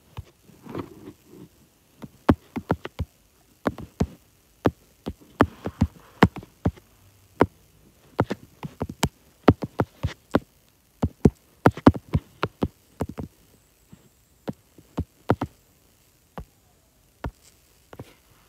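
Typing on a tablet's on-screen keyboard: an irregular run of sharp, quick taps, sometimes several in close succession, with short pauses between words.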